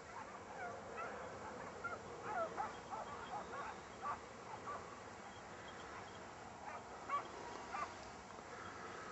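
Scent hounds in full cry on a hare's trail: a ragged chorus of short yelping calls, thickest in the first few seconds, with a couple of louder cries near the end.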